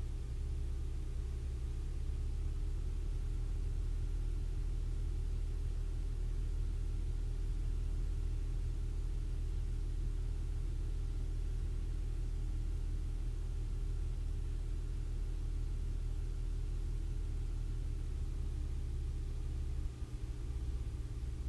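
Cessna 150's Continental O-200 four-cylinder engine and propeller running steadily, a deep drone heard from inside the cabin, dipping briefly near the end.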